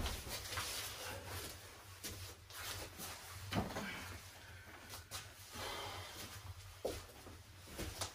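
Footsteps and a few soft knocks and thuds as a bull's head is carried in and set down on a table, the loudest knock about three and a half seconds in, over a faint low hum.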